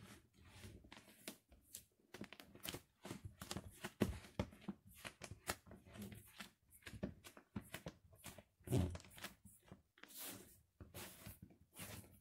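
Bare feet crushing pieces of white bread on a hard floor: irregular crackling and rustling as the bread breaks underfoot, with a few heavier thuds of the feet landing, the strongest about nine seconds in.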